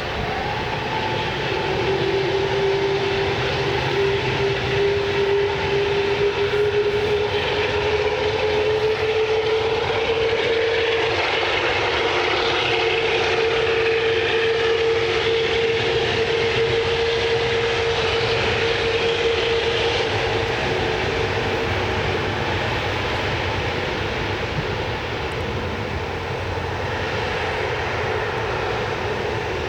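Airliner engines running, a steady roar with a clear whine that rises slowly in pitch for about twenty seconds, then fades.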